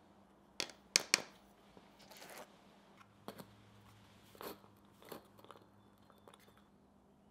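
A metal spoon and a tin can clicking and knocking on a steel anvil, with three sharp clicks in quick succession about a second in. After that comes a short gritty scrape and lighter ticks as dry black powder is stirred in the can with a wooden skewer.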